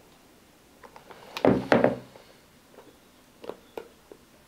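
A football boot set down on a wooden table: two soft thumps about a second and a half in, with faint clicks of the boots being handled before and after.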